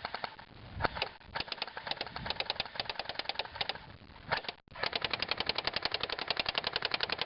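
Battery-powered airsoft rifles, an M4 and an M14, firing on full auto: a fast, even clatter of about a dozen shots a second in two long bursts, with a short break a little past the middle.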